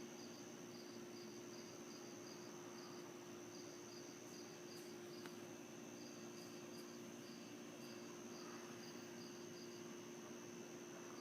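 Faint crickets chirping: short, evenly spaced chirps about three a second, in runs broken by brief pauses, over a steady low hum.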